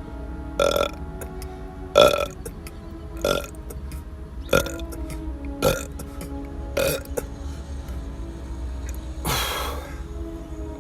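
A series of short burps, about one every second, then a longer, rougher one near the end. Background music plays throughout.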